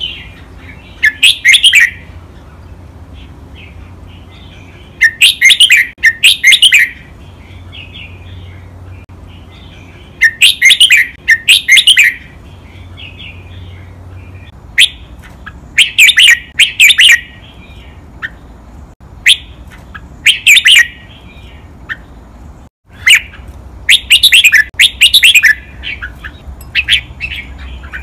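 Red-whiskered bulbul singing loud, short, high song phrases every few seconds, many of them doubled as quick pairs.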